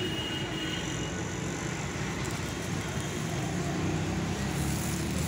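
Steady street noise with a low traffic rumble, over an egg omelette frying on a flat iron griddle. Near the end a steel spatula is slid under the omelette and the hiss gets brighter.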